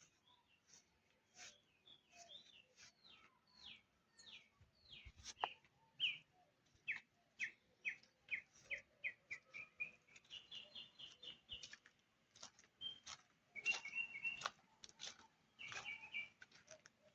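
Birds singing and chirping in varied short calls, including a run of repeated downward-sliding notes that speeds up a few seconds in, then a quick trill, with a few sharp clicks among them.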